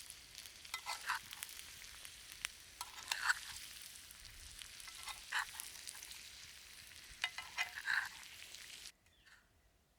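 Food sizzling as it fries in a pan over a campfire, with a utensil stirring and scraping the pan about four times. The sizzling cuts off suddenly near the end.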